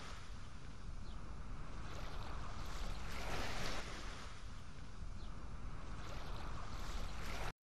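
Ocean waves: a steady wash of surf noise that swells and ebbs, cutting off suddenly near the end.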